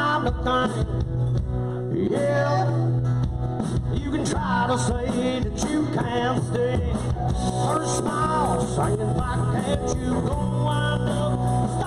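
A live band playing a rock number, with guitar and singing over bass and drums.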